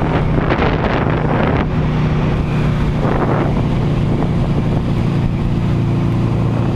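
Motorcycle engine running steadily while riding, with wind buffeting the microphone, the wind noise surging in the first second or so and again about three seconds in.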